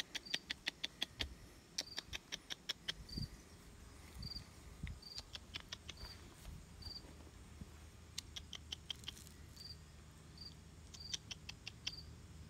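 A cricket chirping in short, evenly spaced high chirps, about three every two seconds. Over it, five times, comes a quick run of sharp high clicks or chips, about seven a second, each run lasting about a second.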